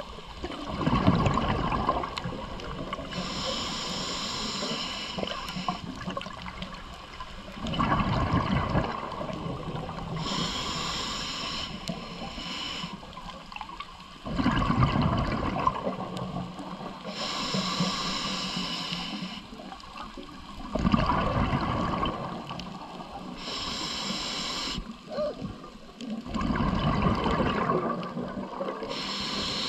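Scuba diver breathing through a regulator, five breaths: each a loud burst of exhaled bubbles followed a few seconds later by a hissing inhale, about every six and a half seconds.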